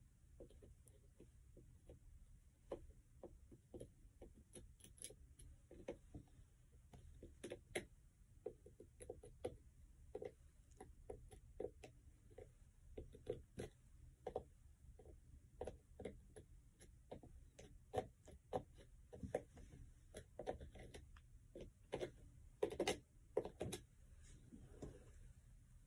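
Faint, irregular small clicks and ticks of a plastic squeeze tube being worked by hand over the spiked metal plates on a boot sole, with a denser cluster of louder clicks near the end.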